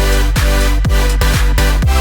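Electronic dance music with a steady kick drum about twice a second over heavy bass.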